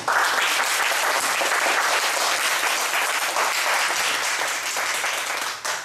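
A small audience applauding, steady clapping that starts at once and stops abruptly near the end.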